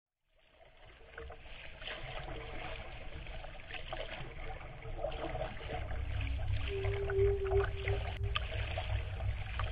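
Water splashing and lapping against a kayak under paddle strokes, fading in over the first couple of seconds, with a low rumble that grows stronger in the second half and a brief steady tone about three-quarters of the way through.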